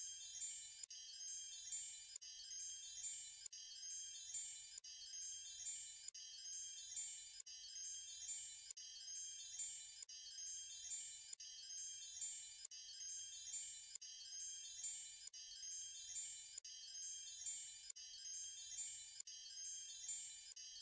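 A looped backing track of high, tinkling chimes, like a wind chime or twinkle sound effect, repeating in a steady, even rhythm.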